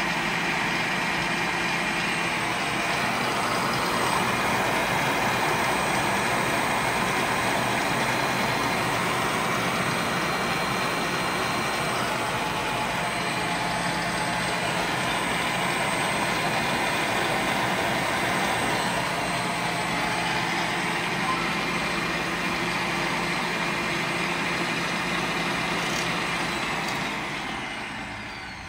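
Cuisinart Precision Master SM50 stand mixer's 500-watt motor running at its top speed, 12, a steady whir with a constant hum. Near the end it slows and winds down, its pitch falling.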